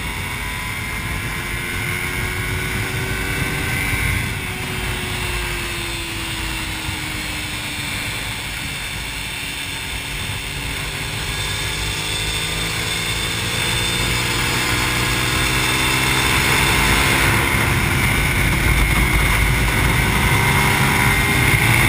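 Suzuki SV650's V-twin engine under way, heard through heavy wind rush on the onboard microphone. Its pitch drops as the rider eases off about four seconds in, then climbs steadily and gets louder as he accelerates through the second half.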